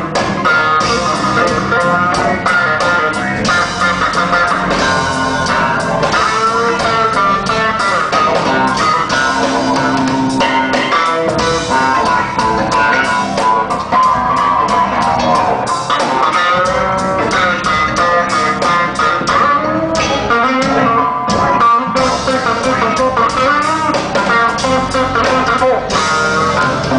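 Live band music led by electric bass guitars playing busy melodic lines high on the neck, over drums.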